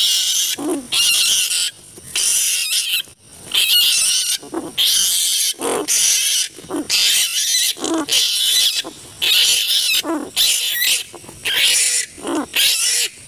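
Large flying foxes (kalong) screeching in quick succession, about one call a second, each a raspy, noisy screech.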